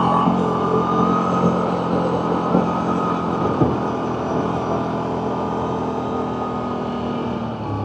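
CFMoto CForce 1000 Overland ATV's V-twin engine running steadily while riding, with a few short knocks along the way. The engine note drops a little near the end.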